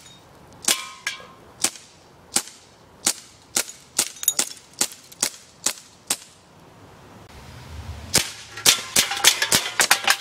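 BB gun fired repeatedly, each shot a sharp crack: a string of about a dozen shots, roughly two a second, then after a pause of about two seconds a faster burst of shots near the end.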